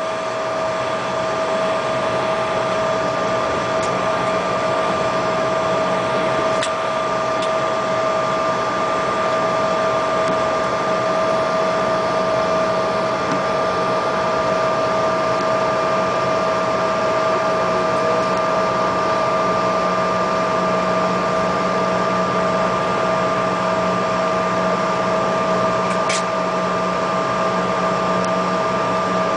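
Cabin noise inside a Bombardier CRJ regional jet taxiing after landing: a steady rush with the even whine of its rear-mounted GE CF34 turbofans at idle, two steady tones held throughout. A couple of faint clicks partway through.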